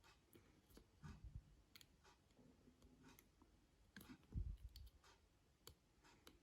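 Faint, scattered clicks of small hand tools on the small plastic parts of a doorbell being worked apart, with a dull knock about four seconds in.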